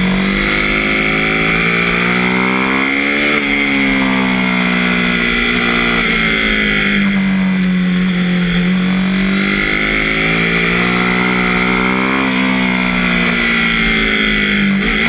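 KTM 790 Duke's 799 cc parallel-twin engine pulling the bike along in sixth gear, its note climbing and easing off slowly twice as the throttle changes, with steady wind rush over the camera.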